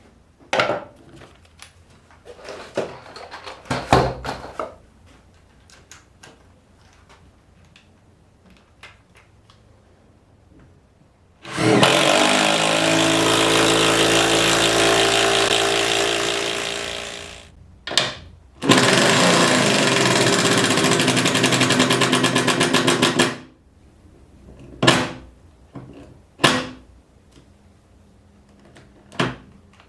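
Bosch 25618 18-volt impact driver hammering hex bolts into a 2x8 board, in two loud runs of about five seconds each with a brief burst between them. Scattered knocks and clicks of handling come before and after.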